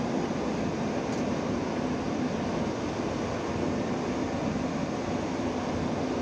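Steady rushing cockpit noise of a Boeing 787 with its engines not yet started: air conditioning and the APU running, with a faint steady hum underneath.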